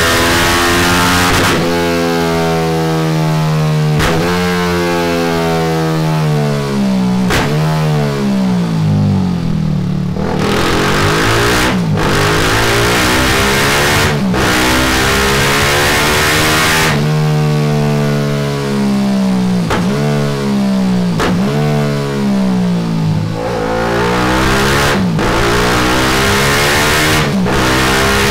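BMW G310GS single-cylinder engine revving through a Delkevic X-Oval titanium end can on a full de-cat system. The pitch rises and falls again and again, broken by short abrupt breaks every few seconds.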